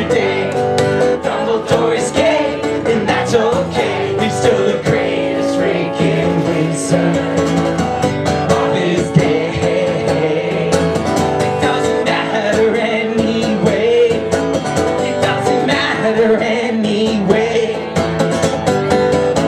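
Acoustic guitar strummed steadily while a man sings along, a live solo song.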